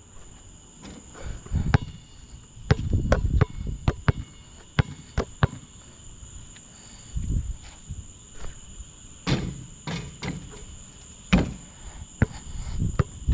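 Basketball play: a ball bouncing irregularly on a hard court, with players' footsteps, over the steady high chirring of insects.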